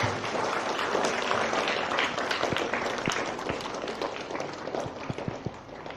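Crowd of schoolchildren applauding, dense at first and thinning out to scattered claps toward the end.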